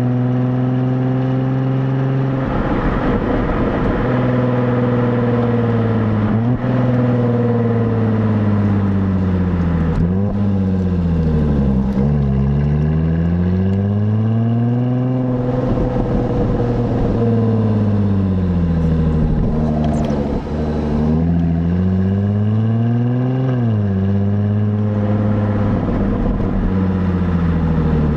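Stock exhaust of a 2017 Jaguar F-Type, heard from the rear number plate while driving. The engine note climbs and falls in pitch several times with throttle, and there is a quick rise and sharp drop in pitch about twenty-three seconds in.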